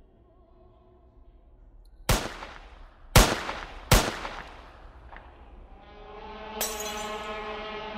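Three loud, sudden bang sound effects, about a second apart, each dying away quickly. From about six seconds a steady drone of several layered tones swells in.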